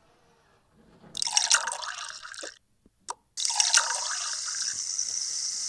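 Liquid being poured or running, in two goes: an uneven, splashy pour starting about a second in, then a steadier stream from about three and a half seconds.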